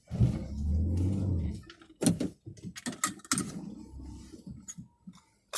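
Vehicle cabin noise while driving slowly: a low rumble for about the first second and a half, then several sharp clicks over quieter road noise.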